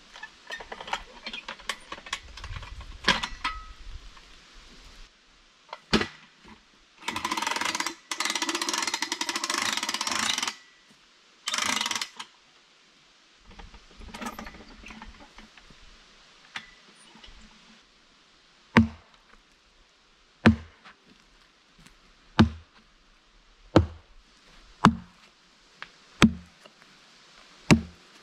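Fiskars hatchet chopping into the thick bark of a trembling aspen log, seven sharp blows about one and a half seconds apart in the second half. Earlier there are scattered knocks and a few seconds of rough scraping noise.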